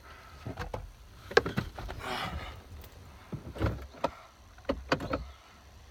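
Scattered clicks and knocks with a short rustle: hands handling screws, trim and tools while refitting the steering-wheel airbag.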